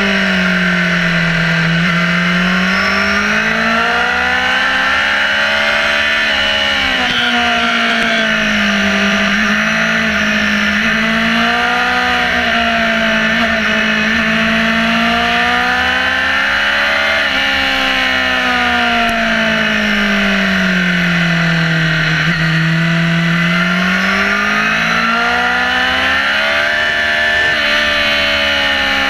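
Sport motorcycle's engine running under load, its pitch rising and falling with the throttle through a series of bends, with two sudden breaks in pitch at gear changes. A steady rush of wind and road noise runs underneath.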